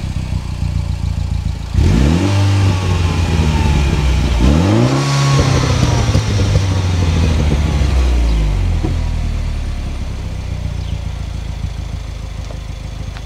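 Peugeot 308 GTI's 1.6 THP turbocharged four-cylinder engine, heard at the twin exhaust tailpipes, revved while parked. It idles, then gets a quick blip about two seconds in. About four and a half seconds in it is revved again and held at raised revs for a few seconds, then drops back to a steady idle.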